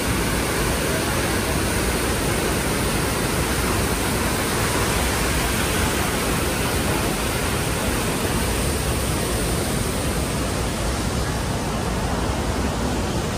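Large waterfall crashing into a rocky canyon pool, heard up close as a steady, even rush of falling water that never lets up.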